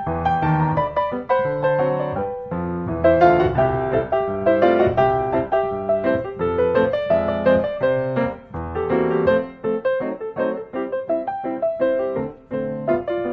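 Background piano music: a steady, gentle melody of piano notes.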